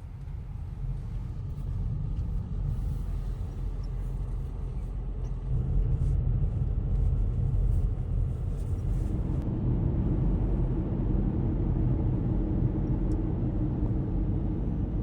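Steady low rumble of a vehicle running, swelling over the first couple of seconds, with a steadier mid-low drone joining about two thirds of the way through.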